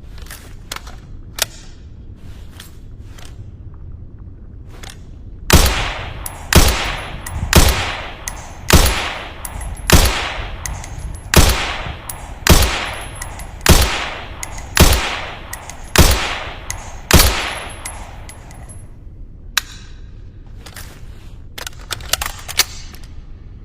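Springfield M1A rifle fitted with a cloth-wrapped suppressor, firing eleven shots in steady semi-automatic succession, about one a second, each shot trailing off in an echo. A few faint clicks come before and after the string.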